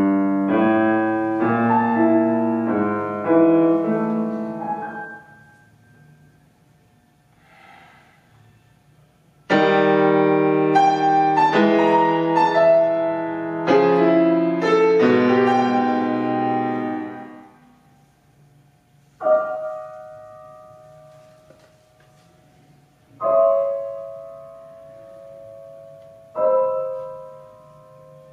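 Grand piano played solo: two loud passages of dense, repeated chords with a pause of a few seconds between them, then three single chords about four seconds apart, each left to ring and die away.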